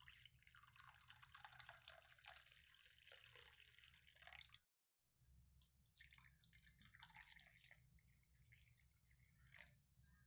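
Tea poured in a thin stream into a ceramic cup, faint trickling and splashing as it fills; it breaks off about four and a half seconds in and resumes as a second cup is filled.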